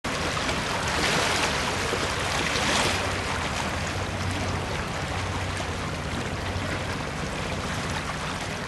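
Harbour water washing and lapping against a rocky shore, a steady rushing wash that surges louder about one and three seconds in, with a low steady hum underneath.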